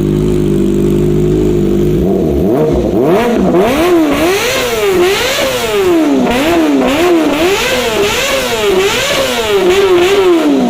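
Kawasaki ZX-25R's 249 cc inline-four with an R9 full titanium exhaust, idling and then, about two seconds in, revved in quick repeated throttle blips, the revs rising and falling over and over before dropping back to idle at the end.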